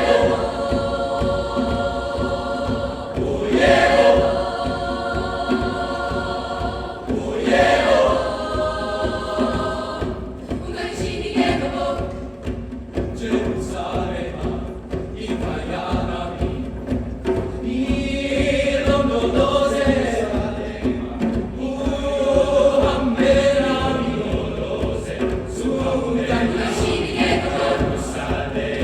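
Choir singing in sustained chords, with louder phrase entries about four and eight seconds in.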